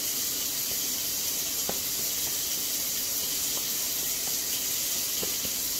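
Kitchen faucet running a steady stream of water into a stainless steel sink, an even hiss, with a few faint light ticks.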